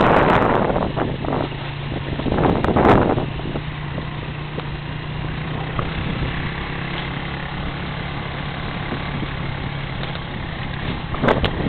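Boat motor running at a steady pitch, with gusts of wind on the microphone at the start and again about three seconds in.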